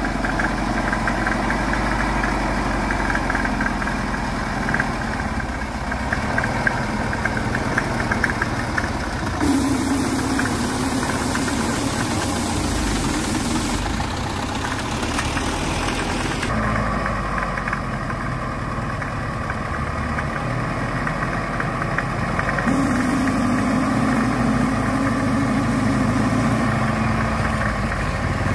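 Diesel engine of a loaded homemade logging truck running steadily under load with a knocking clatter as it crawls through mud. The sound changes abruptly a few times.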